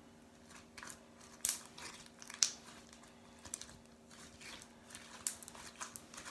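Hands kneading and mixing soapy slime, giving scattered short sticky crackles and pops, the loudest about one and a half and two and a half seconds in. A faint steady hum runs underneath.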